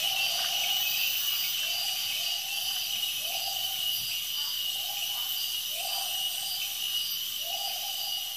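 Amazon rainforest at night: a chorus of insects with steady high trills and a pulsing buzz, and over it a low hooting call repeated about every second and a half.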